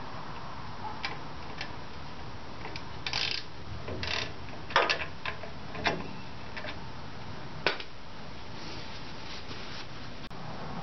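Scattered, irregular light metal clicks and clinks of hand tools and drum-brake parts being worked at a car's rear brake backing plate.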